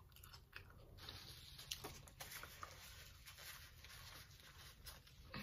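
Near silence: faint small clicks and soft rustling from eating and handling food at the table, over a low steady room hum.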